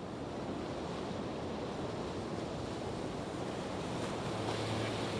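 Steady rushing noise that swells in slowly, with a low steady hum joining about four seconds in.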